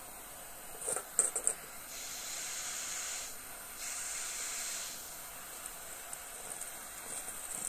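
Small gas torch jet hissing as it blows a blue flame, in two stretches of about a second each with a short dip between. A few sharp clicks come about a second in, and lighter clicks near the end.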